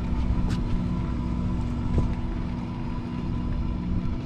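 The sportfishing boat's onboard machinery humming steadily, a low rumble with a constant tone, with a couple of short knocks on deck.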